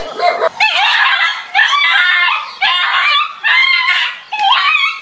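An animal shrieks loudly and repeatedly, about six high, wavering cries in a row with short breaks between them.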